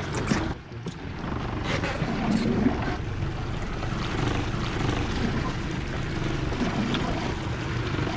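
Twin Suzuki 140 outboard motors running at low speed, a steady low drone, with water washing around the stern.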